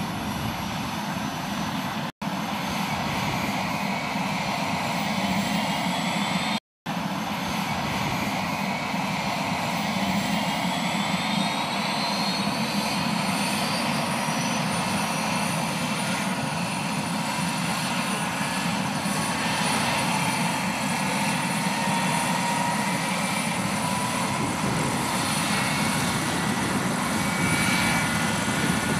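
Helicopter running on the ground with its main rotor turning: a steady, loud engine and rotor noise with a whine rising in pitch over the first several seconds. The sound cuts out briefly twice near the start.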